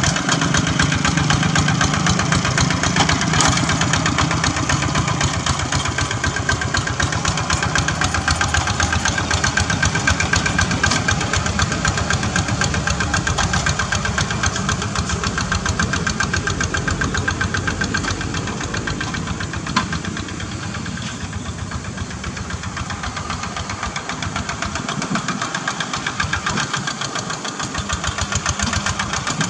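Single-cylinder diesel engine of a two-wheel hand tractor running under load while plowing wet paddy mud, with a rapid, even firing beat. It grows quieter for several seconds past the middle, then louder again near the end.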